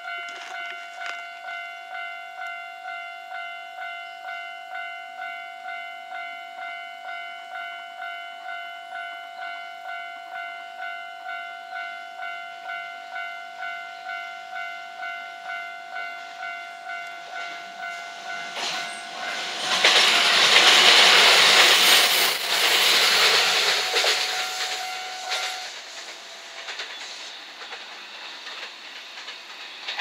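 A level crossing's electronic warning bell rings about twice a second. A JR West 227 series three-car electric train then passes loudly from about 19 to 25 seconds in, and the bell stops just as the train clears.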